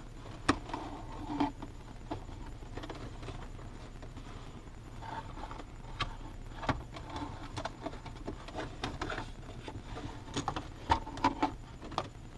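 Scattered light clicks, taps and rustling from hands working a foam pad out from around a car's gear shifter. The sharpest clicks come about half a second in, near seven seconds and near the end.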